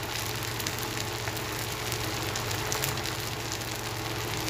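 Oil sizzling in a small steel tempering ladle over a gas flame, with mustard seeds, cumin and urad dal crackling steadily in it as the tempering fries. A steady low hum runs underneath.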